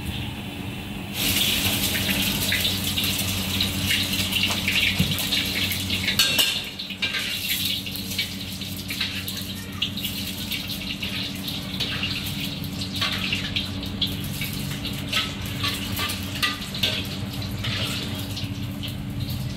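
An egg frying in hot oil in a wok, sizzling and crackling, starting about a second in and easing a little after about six seconds. A steady low hum runs underneath.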